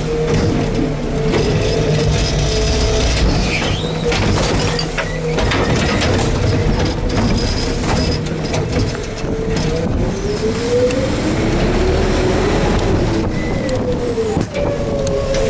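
Rear-loader garbage truck's hydraulic packer compacting a hopper of rain-soaked refuse: the engine and hydraulic pump run with a steady whine that rises and falls in pitch near the middle, with knocks and clanks from the load. Wind buffets the microphone throughout.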